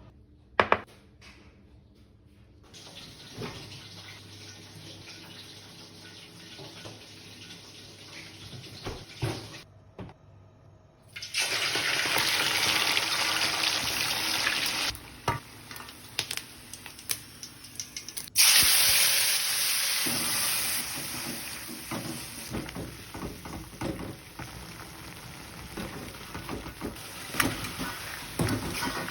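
Kitchen tap running into a sink in two loud spells, one from about 11 to 15 seconds in and one from about 18 to 21 seconds in, with scattered knocks and clatter between and around them.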